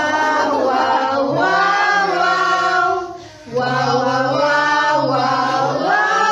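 Singing, in two long held phrases with a short break about three seconds in.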